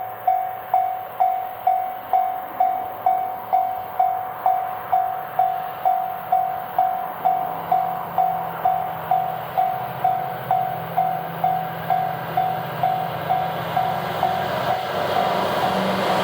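Level-crossing warning bell ringing in even strikes, about two a second, as a local train approaches. The train's rumble grows from about halfway through and swells into a louder pass near the end.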